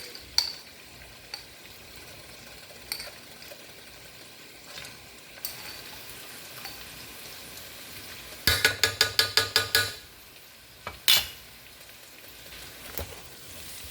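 Chicken, onions and peppers sizzling in a frying pan while being stirred with a utensil, with scattered clinks against the pan. A little past halfway comes a quick run of about ten taps on the pan, and a single sharp knock follows soon after.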